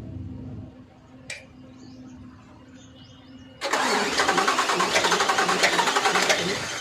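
Isuzu 8PE diesel engine being cranked by its starter for about three seconds, a loud fast pulsing churn that stops abruptly without the engine clearly catching, as expected of a hard-starting engine. A single sharp click comes a little over a second in, before the cranking.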